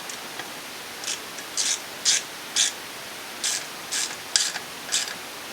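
Hand ratchet wrench being worked back and forth, its pawl clicking in short bursts about twice a second with a brief pause midway, as an engine mounting bolt is turned out.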